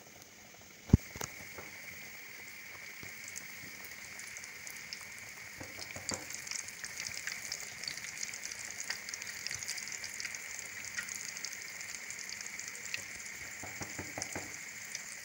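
Food deep-frying in hot oil: a steady sizzle thick with fine crackles and pops, building a little after a sharp knock about a second in.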